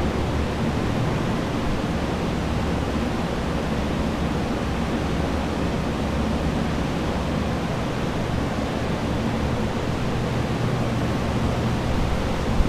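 Many water-damage drying machines (centrifugal carpet air movers, axial fans and a dehumidifier) running together: a steady rush of blown air over a low hum, the sound of structural drying after a flood. A brief knock near the end.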